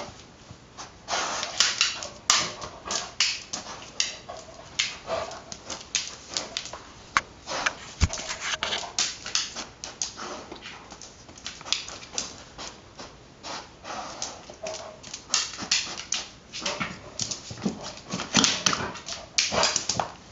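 Irish Setter pawing and scrabbling at a ball stuck under a cart: an irregular run of scratches and knocks, with brief whimpers now and then.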